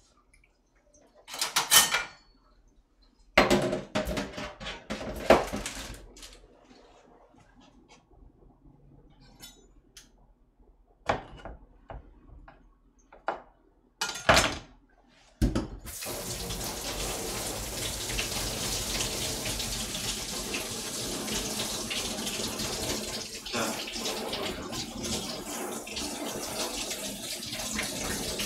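Scattered knocks and clatter of kitchen utensils and a knife on a cutting board, then, about halfway through, a kitchen tap starts running steadily into a stainless steel sink.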